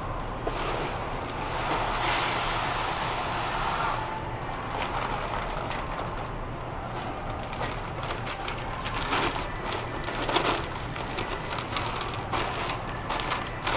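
Popcorn bags rustling and crinkling as they are handled at a counter, over a steady low hum.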